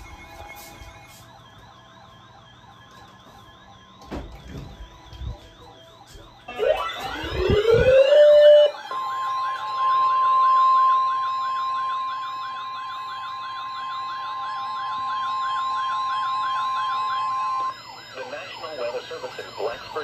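Weather radio alarms going off for a severe thunderstorm warning. A faint wavering siren-like tone comes first; about six seconds in, siren tones wind up with rising pitch. From about nine seconds the weather radio's steady 1050 Hz warning alarm tone sounds under the wailing for about nine seconds, then cuts off suddenly.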